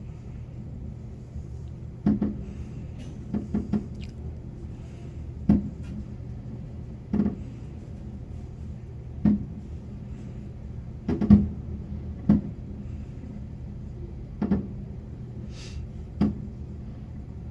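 Fireworks display going off: about a dozen sharp booms at irregular intervals, some in quick clusters of two or three, over a steady low hum.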